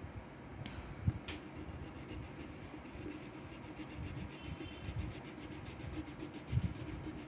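Colouring in on paper: a peach colour rubbed in quick, steady back-and-forth strokes across a workbook page. Two soft thumps, about a second in and near the end, are the loudest sounds.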